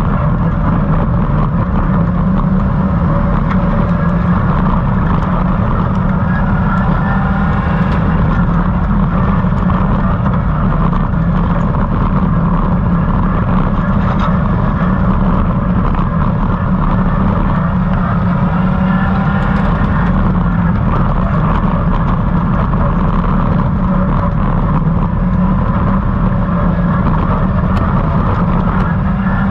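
Stock hatch race car driven hard on a dirt track, heard from inside its stripped cabin: a loud, steady engine and road rumble, with the engine note rising and falling now and then.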